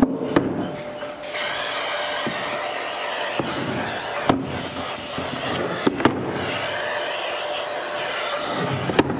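Aerosol spray can hissing as it sprays the inside of a plastic dough tub. The hiss starts about a second in and runs steadily, with short breaks near the middle and near the end, and a few light knocks.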